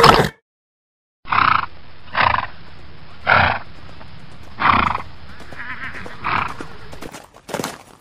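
A horse calling: about six short, breathy calls roughly a second apart over a steady hiss, after a second of silence. Near the end, a run of sharp clicks starts.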